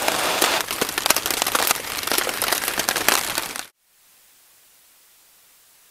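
Wood campfire crackling and popping with sharp cracks, over a dense patter of heavy rain on a plastic tarp overhead. It cuts off abruptly about four seconds in, leaving only a faint steady hiss.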